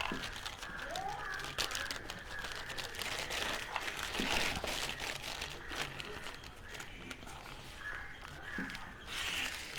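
Plastic packaging and bubble wrap crinkling and rustling as hands open a parcel, with scattered small clicks and crackles.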